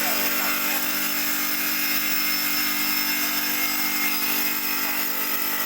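Electric stone-cutting machine running steadily as it works stone: an unbroken motor whine holding one pitch over a grinding hiss.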